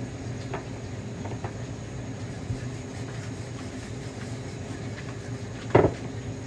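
Kitchen chimney (range hood) exhaust fan running with a steady hum. A single short knock near the end.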